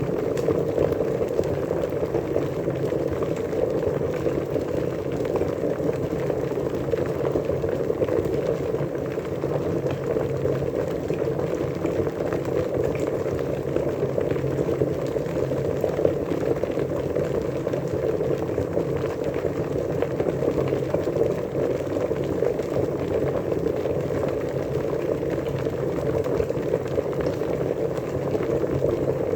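Water at a rolling boil, a dense, steady bubbling and churning.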